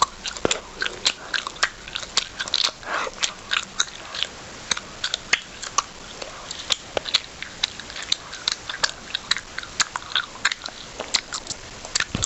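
A person chewing food loudly, with rapid irregular smacks and crunches several times a second.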